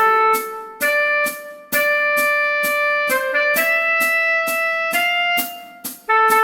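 Instrumental music: a melody of long held notes, plausibly the tenor saxophone line being taught, over a backing track with a steady beat about two strokes a second, with two short breaks between phrases.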